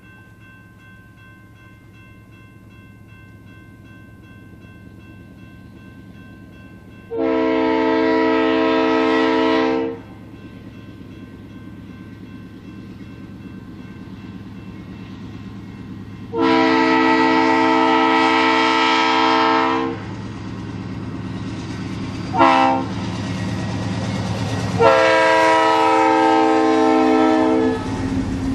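Diesel freight locomotive's multi-note air horn sounding two long blasts, one short and one long, the standard grade-crossing signal, over the rising rumble of the approaching train. The last blast sags slightly in pitch as the locomotive passes, and the rolling rumble of the tank cars follows.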